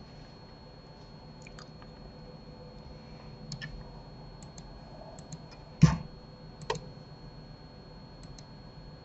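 Scattered computer mouse and keyboard clicks, with one louder thump about six seconds in and a softer one shortly after.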